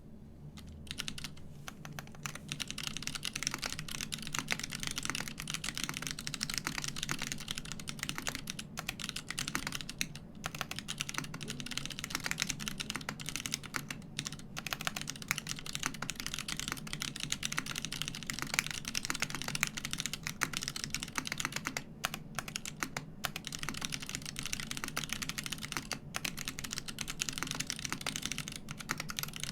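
Fast, continuous typing on a custom mechanical keyboard with unlubed Kailh Box Crystal switches on an aluminium plate, each keypress a sharp click, with a few brief pauses.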